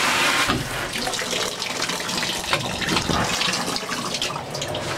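Water from a Moen shower head spraying into a bathtub, a steady hiss that turns lower and more splashy about half a second in.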